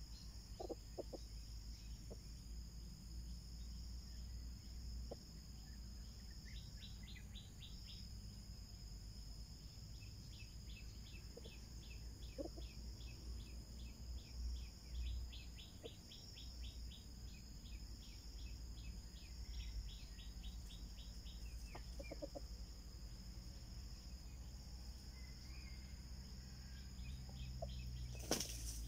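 Steady high insect drone of a tropical plantation, with two runs of fast ticking chirps and a few soft low clucks from a foraging red junglefowl rooster. A single sharp crack sounds near the end.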